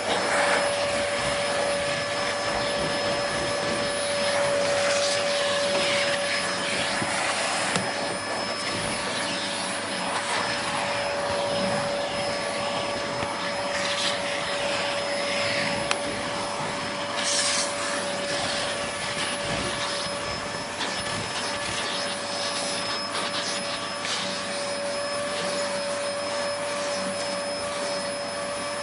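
Vacuum cleaner running steadily: an even rushing hiss with a constant motor whine, broken by a few brief swishes in the hiss.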